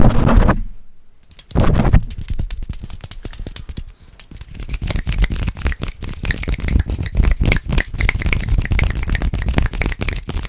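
Fast, aggressive ASMR mic triggers on a high-gain microphone: two heavy thumps against the mic at the start and about a second and a half in, then a dense, rapid run of scratching and tapping on the mic.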